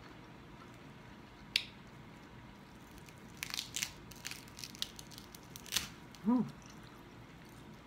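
Crispy fried skin of a bone-in pork hock crackling as it is pulled and torn off by hand: a single snap about a second and a half in, then a run of short crunchy crackles. A short hum, rising and falling in pitch, comes near the end.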